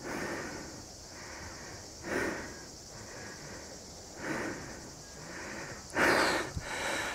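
A person breathing hard and heavily, about one deep breath a second with the biggest near the end, out of breath from climbing a steep sandy slope.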